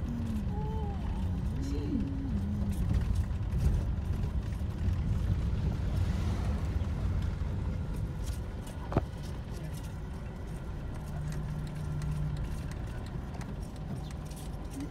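Road noise inside a moving car: a steady low rumble of the car driving over a rough road. A brief voice sound comes in the first couple of seconds, and a single sharp click about nine seconds in.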